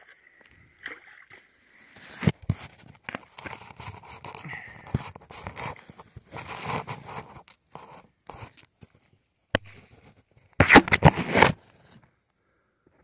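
Footsteps and rustling through dry grass on a canal bank, with phone handling noise as fingers rub over the microphone. The loudest part is a burst of rubbing and scraping near the end.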